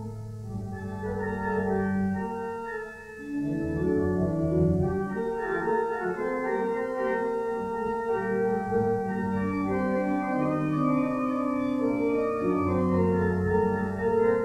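Organ playing a hymn tune in slow, held chords that move every second or two, with a short lull about three seconds in.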